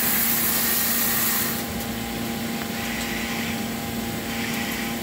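Okuma MX45VAE CNC vertical mill running with flood coolant spraying over the workpiece and vises, a steady hiss over the machine's hum. About a second and a half in, the coolant spray shuts off and the hiss drops away, leaving the steady machine hum.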